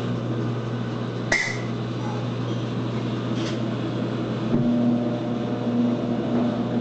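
Electrolux TOP8A top-loading washing machine running on its spin cycle: a steady motor hum with two sharp clicks, and a second, higher hum joining about four and a half seconds in. This is the spin noise the owner is reporting on the machine.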